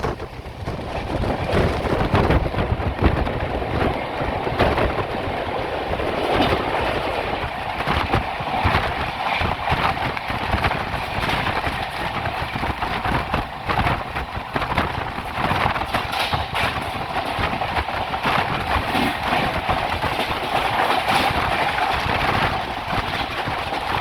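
Poorva Express train running at speed on the track: a continuous rumble of wheels on rail with many rapid clicks and knocks.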